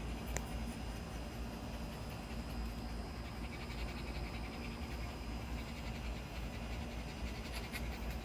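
Micro bully puppy panting with quick, even breaths over a steady low hum, with a single click near the start.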